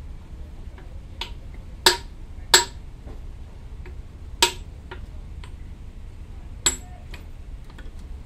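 Hammer blows on steel at the end of a hydraulic cylinder, working a hook spanner to loosen its end cap: about five sharp, ringing metal clanks at irregular intervals, with a few light clicks between them.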